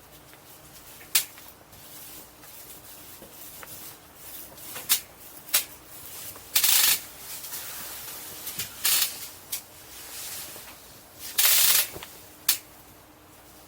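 Paintbrush working thick bed liner coating onto a camper's panels: scattered short, scratchy brush strokes, with two longer strokes about seven and eleven and a half seconds in.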